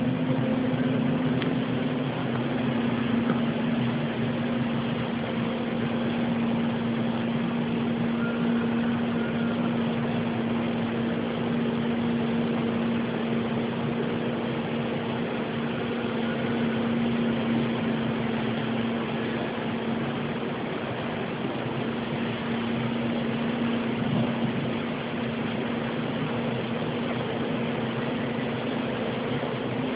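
An unexplained steady hum at one low pitch with a fainter overtone, over a constant hiss, holding level throughout: one of the 'strange sounds' that the listeners find loud and unceasing.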